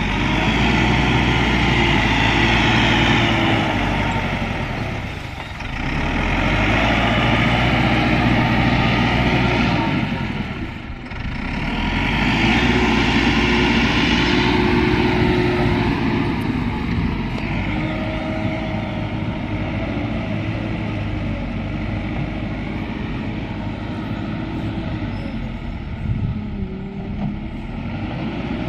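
Bulldozer's diesel engine working under load, swelling in three long loud spells with brief drops about five and eleven seconds in, then running steadier and a little quieter.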